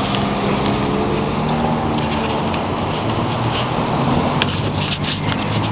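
Steady low drone of idling engines and road traffic. From about four and a half seconds in, scraping and clicking from the camera being handled come in over it.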